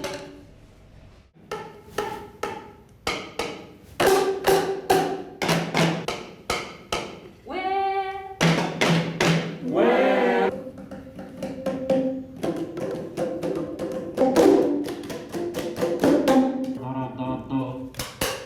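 A group making music together: a steady pulse of hand claps and percussion strokes, about two a second, with voices singing and calling short phrases over it.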